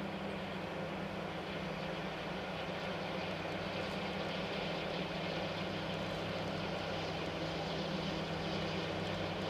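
DD51 diesel-hydraulic locomotive's engines running as it hauls a freight train round a curve, a steady low engine hum that grows slowly louder as the train approaches.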